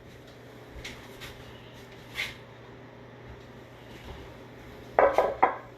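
Kitchen handling noises: a few light knocks and clinks over a steady low hum, with a brief louder clatter about five seconds in.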